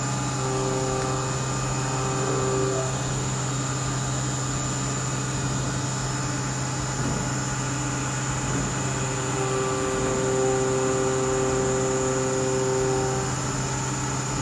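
Mori Seiki NLX2500Y CNC lathe running under power: a steady low hum with higher whining tones that come in and fade out, strongest near the start and again from about nine to thirteen seconds in.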